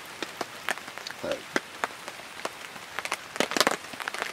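Scattered raindrops falling as irregular sharp taps, with a quick run of them about three and a half seconds in.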